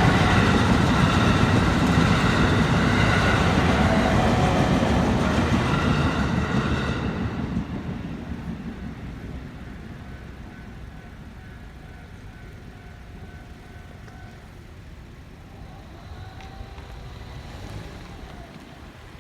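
A JR Utsunomiya Line train running through a level crossing, loud with a heavy rumble of wheels on rails for the first several seconds. The rumble then fades away over a few seconds as the train moves off.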